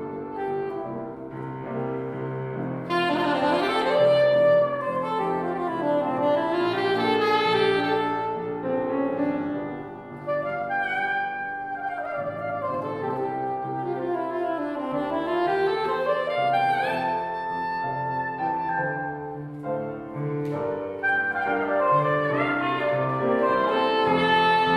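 Instrumental jazz-standard passage: a saxophone-toned lead plays sweeping runs up and down over piano chords.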